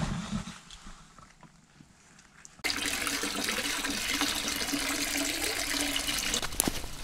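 Water pouring from a stone spring's pipe spout into a pool below, a steady splashing rush that starts abruptly about two and a half seconds in, after a quiet opening.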